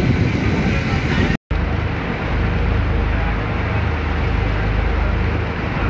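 Riverboat's engine running with a steady low drone under a wash of water and wind noise, broken by a brief gap of silence about a second and a half in.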